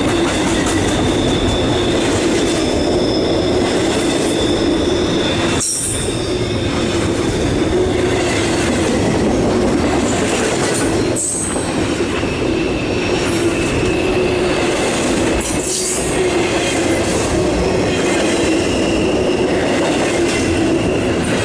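Cars of a CSX freight train (Tropicana juice and intermodal) rolling steadily past, with a continuous rumble and high wheel squeal. The sound dips briefly about every five seconds.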